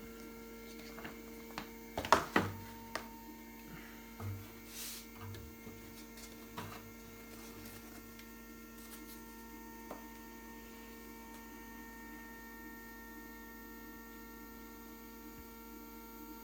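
M180 3D printer humming with a steady whine of several tones from its stepper motors and electronics as the axes home toward their limit switches. A few sharp clicks and knocks come in the first seven seconds, the loudest about two seconds in.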